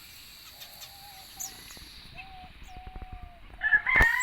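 Bird calls: faint, drawn-out, gliding calls for most of the stretch, then a louder call starting near the end, with a sharp click just before the end.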